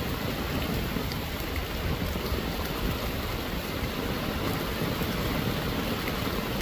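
Very heavy rain falling: a steady hiss with no letup.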